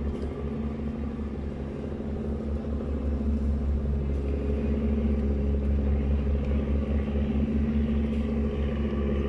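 Steady low rumble of outdoor city ambience with a droning, engine-like hum, as from passing traffic or vessels.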